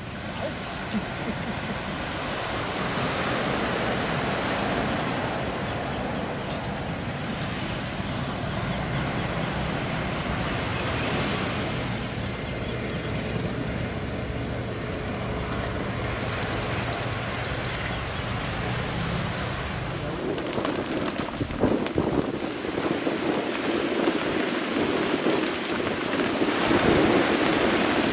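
Twin-engine business jet on final approach, its engines a steady rushing hum mixed with surf breaking and wind. About twenty seconds in the low rumble drops away and gusty wind buffets the microphone.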